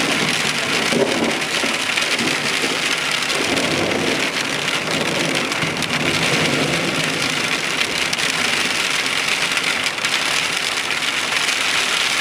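Heavy storm rain pouring steadily and pelting hard surfaces, a dense continuous patter.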